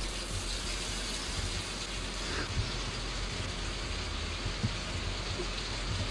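Steady rushing hiss of running water, starting abruptly.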